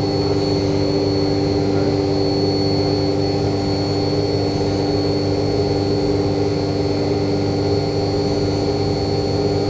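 Haas TM-1P CNC toolroom mill running its program, the spindle driving a small end mill through a slot: a steady machine hum with a constant high whine above it.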